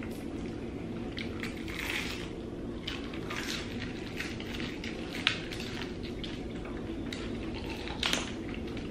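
Fried chicken legs being pulled apart and eaten: short, irregular wet tearing and chewing sounds, with a sharp click about five seconds in and a louder burst near the end.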